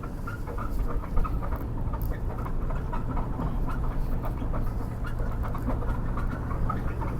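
Rear end of a 2004 Ford Crown Victoria making a loud clunking, a quick string of knocks several times a second over the low rumble of the car on the road while it turns. The noise comes from the rear wheel and is still there after both universal joints were replaced.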